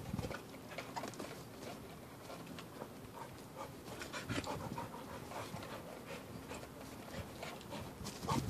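A dog panting, faint short breaths that grow louder near the end.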